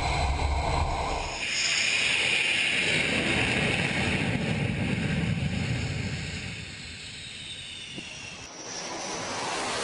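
Jet aircraft passing: a loud rushing roar with a faint falling whine that fades after about six seconds. It gives way abruptly near the end to a steady even hiss.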